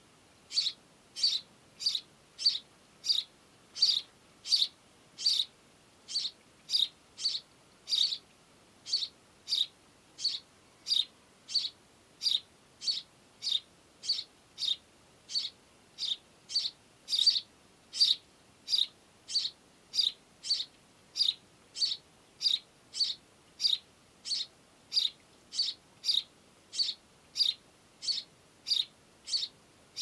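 House sparrow chirping one short note over and over, about two chirps a second in a steady, unbroken series.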